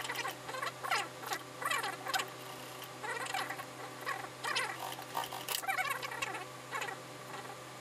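Industrial single-needle lockstitch sewing machine stitching a trouser seam in short spurts, about two a second, each spurt sweeping down in pitch as the servo motor stops, over the motor's steady low hum.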